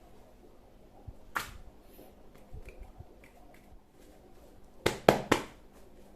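Toy gun being handled with light clicks and taps, then fired three times in quick succession near the end.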